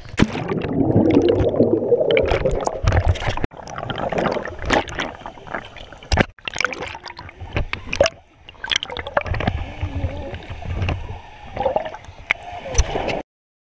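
Muffled gurgling and sloshing pool water heard through a GoPro's waterproof case as it dips under and moves through the water, with scattered sharp clicks. The sound cuts off abruptly near the end.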